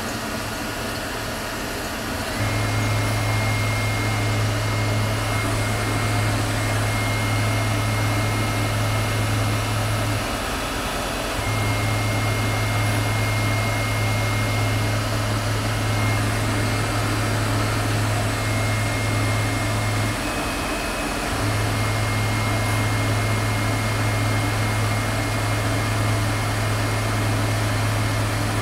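Tormach CNC lathe hard-turning a hardened steel dowel pin with a cubic boron nitride insert, dry and throwing red-hot chips. The sound is a steady low hum with a thin high whine. It gets louder about two seconds in and dips out briefly twice, about ten and twenty seconds in.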